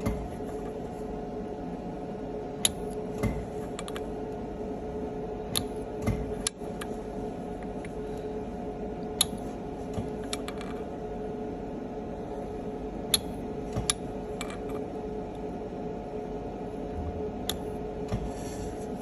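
Precision cold welding machine making spot welds on thin stainless steel sheet: about eight sharp snaps, one per weld, spaced irregularly a few seconds apart, over the machine's steady hum.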